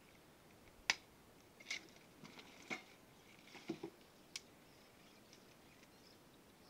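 Faint handling sounds of plastic fittings and cable on a PVC pipe: about five short clicks with soft rustling, roughly one a second, then only a low background hiss.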